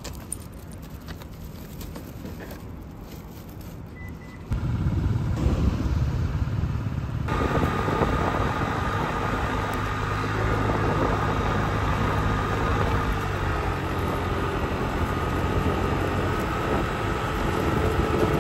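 A car driving, with steady engine and road noise. The noise steps up suddenly about four and a half seconds in and again, brighter, a few seconds later.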